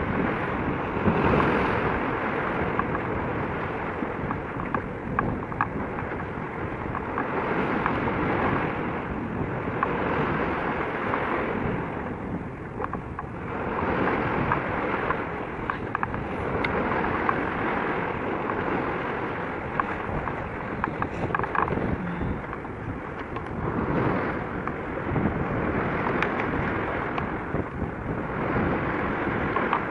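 Wind blowing over the microphone, a steady rushing noise that swells and eases in gusts every few seconds.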